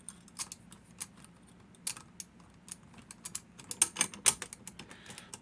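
Hori 1601 six-lever padlock being worked by hand, a run of small sharp metal clicks and snaps from the shackle and lock mechanism, loudest in a cluster about four seconds in.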